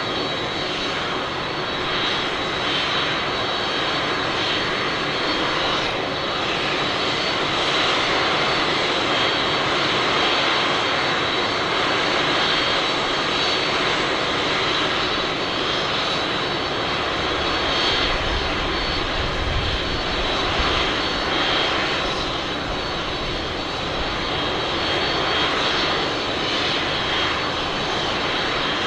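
Jet engines of a Boeing 747-400D running: a steady, loud rush of jet noise with a thin high whine held through it.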